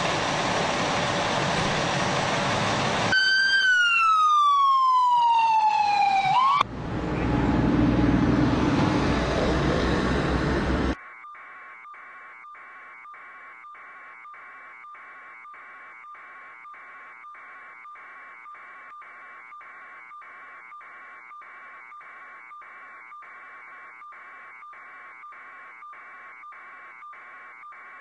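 Loud vehicle noise, then an emergency-vehicle siren winding down in pitch for about three seconds, followed by rumbling engine noise. About eleven seconds in, this cuts off to a much quieter, steady pulsing about twice a second on a fixed tone.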